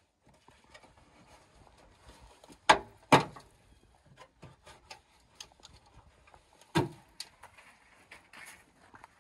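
Hood insulation pad being pried and pulled off the underside of a Ford Ranger pickup's hood: scattered small clicks and scrapes, with three sharp snaps, two close together about three seconds in and a third a few seconds later, as the pad's plastic retainer clips are popped out.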